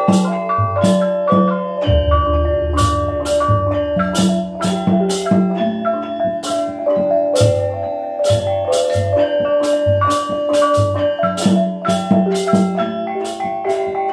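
Osing gamelan from Banyuwangi playing a gending. Rows of bonang kettle gongs ring out a quick melody of pitched notes over steady kendang drum strokes. A deep gong stroke sounds about two seconds in and hums on.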